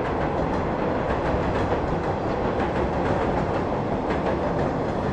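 JR West 115 series electric train running across a steel railway bridge: a steady rumble of wheels on rail with faint clicks.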